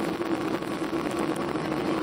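Steady cabin noise of a Boeing 737-800 in flight: the constant rush of airflow and drone of its CFM56-7B jet engines, with a steady low hum.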